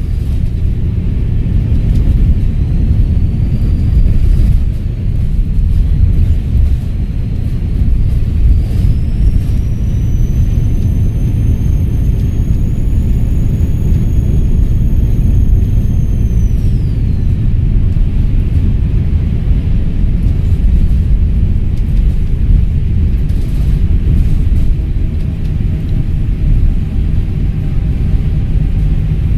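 Volvo B7RLE bus's turbocharged six-cylinder diesel engine running with a heavy low rumble, its turbo whistle rising in pitch a few seconds in, climbing higher and louder about a third of the way through, holding, then falling away about halfway through.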